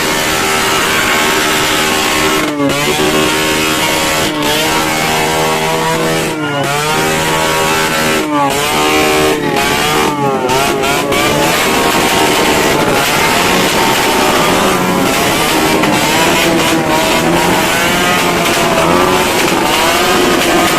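A motor engine running loudly, its pitch dropping and climbing back sharply again and again in the first half, like repeated throttle blips, then running more evenly with a slowly wavering pitch.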